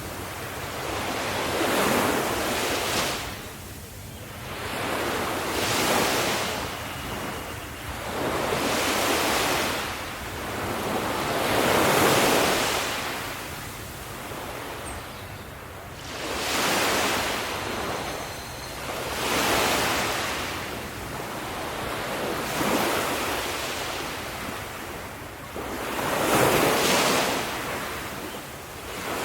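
Ocean waves breaking on a shore, each one surging up into a loud rush of surf and then washing back, about every three to four seconds, over a low steady rumble.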